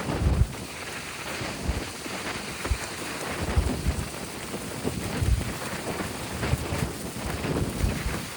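Wind buffeting the microphone in irregular low rumbling gusts over a steady wash of Mediterranean surf.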